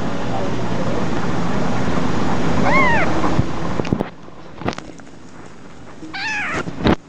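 Kittens mewing twice, each a short call that rises and falls in pitch, while nursing on their mother. For the first four seconds a loud steady noise runs underneath, then stops. A few knocks and rustles of handling come in the second half.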